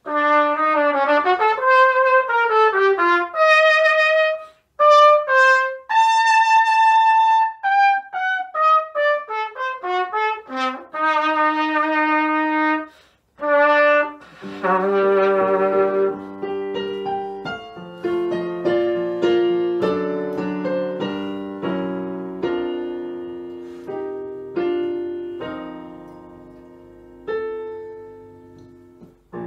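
Cornet solo played in fast runs and wide leaps, unaccompanied at first. About halfway through, piano accompaniment comes in with sustained chords under it.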